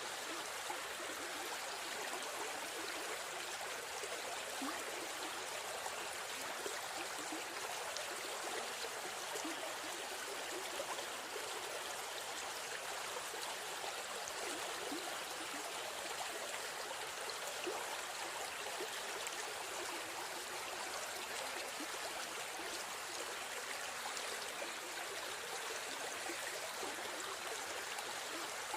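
A river stream flowing and babbling steadily, water rushing over rocks.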